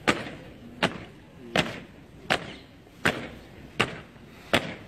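Boots of a ceremonial honour guard stamping hard on stone paving as the soldiers march in step: a sharp stamp about every three-quarters of a second.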